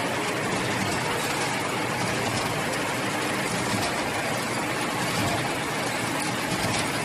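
Paper straw making machine running with a steady, even mechanical noise.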